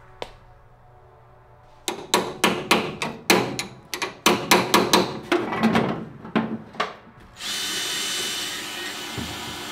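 Tools working on a stuck car door hinge: a rapid run of about eighteen sharp strikes over five seconds, then a power tool starting about halfway through and running steadily.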